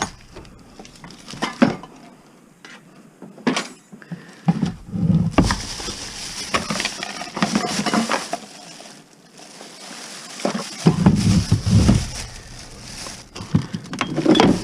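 Scattered clinks, knocks and rattles of household objects being handled and moved about, with stretches of low rumbling and shuffling noise.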